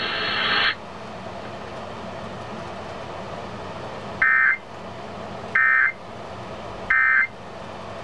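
Emergency Alert System end-of-message tones played through a clock radio's speaker: three short, identical bursts of warbling data tone about 1.3 seconds apart, marking the end of the Flash Flood Warning broadcast. A hiss cuts off under a second in, before the first burst.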